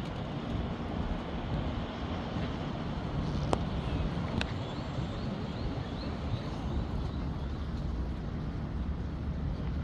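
Steady low engine drone under a constant rushing noise, with two short clicks about three and a half and four and a half seconds in.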